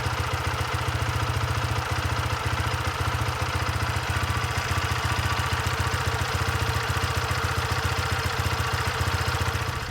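Freshly rebuilt engine running steadily on its first start after the rebuild, with an even, rapid firing beat.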